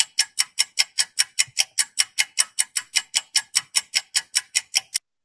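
A quick, even clock-style ticking, about five to six ticks a second, that stops shortly before the end: a quiz countdown-timer sound effect.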